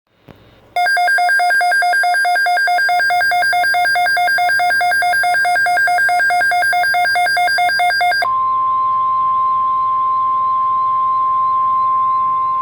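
An electronic alert tone warbles rapidly between two buzzy pitches, switching several times a second, for about seven seconds. It then gives way to a steady single-pitched tone, the 1050 Hz NOAA Weather Radio warning alarm, which signals that an emergency alert message follows.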